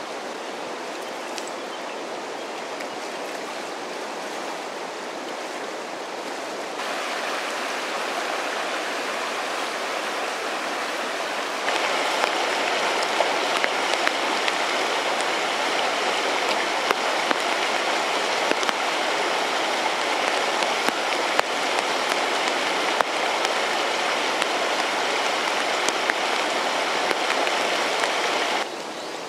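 Shallow stony river running: a steady rush of water that grows louder about a dozen seconds in, with a few faint clicks and knocks on top.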